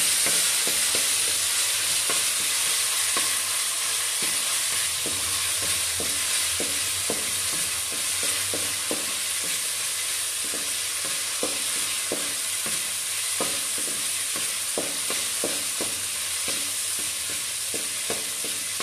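Ginger-garlic paste sizzling in hot oil in a metal kadai, a steady high hiss. Over it, a wooden spatula scrapes and knocks against the pan as the paste is stirred, in frequent irregular strokes.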